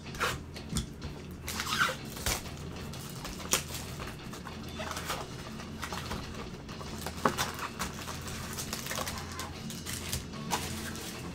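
Baseball card packs and their cardboard box being handled with gloved hands: rustling and crinkling foil wrappers with light taps and clicks, over a steady low electrical hum.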